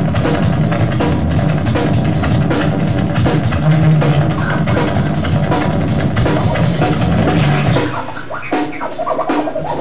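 A live rock band playing loud music, with a pounding drum kit, heavy bass and electric guitar. About eight seconds in, the low end and drums drop back, leaving a thinner, quieter texture.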